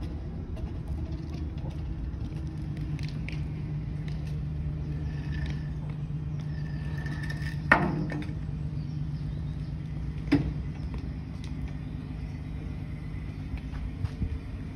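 Forklifts running with a steady low hum as they carry a lifted shipping container between them. A sharp knock comes about eight seconds in, the loudest sound, and a smaller one follows about two and a half seconds later.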